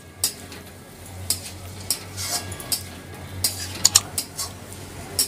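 Metal spatula stirring and scraping a sago and vegetable mix in a metal kadai, with irregular clinks of the spatula against the pan over a steady low hum.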